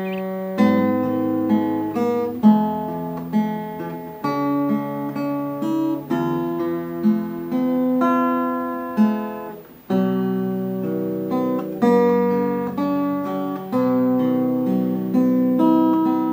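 Background music: an acoustic guitar plucking and strumming chords, a new note or chord about every half second to second.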